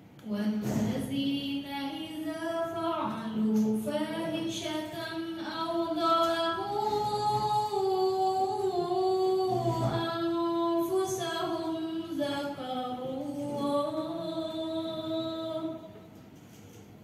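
A woman reciting the Qur'an in the melodic tilawah style into a microphone, in one long phrase of drawn-out, ornamented notes that glide up and down. The phrase ends about a second before the end.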